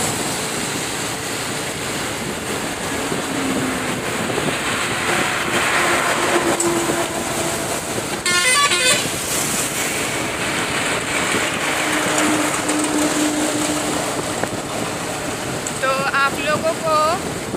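Wind and road noise while riding a motorcycle along a busy highway among trucks, with a vehicle horn honking briefly about eight seconds in.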